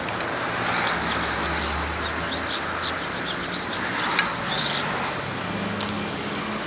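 A quick run of short scraping or rubbing strokes over a steady mechanical hum, easing off about five seconds in.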